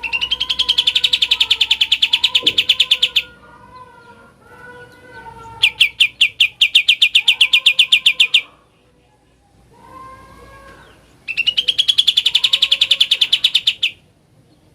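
Kapas tembak bird singing its 'ngebren': three bursts of fast, evenly repeated high notes, each about three seconds long, with softer warbling from other birds in between.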